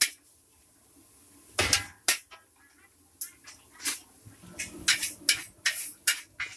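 Metal spatula clanking and scraping against a wok as Mie Aceh noodles are stir-fried, in about a dozen irregular sharp strikes.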